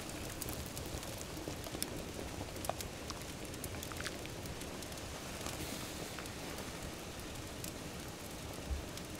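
Pasta boiling hard in water in a cast-iron Dutch oven over a wood fire: a steady bubbling hiss with scattered sharp crackles.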